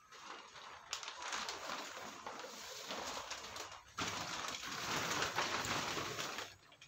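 Rustling and rubbing of a quilted mattress's fabric cover as the mattress is lifted and leaned against a wall, a continuous scratchy noise with a brief pause about four seconds in.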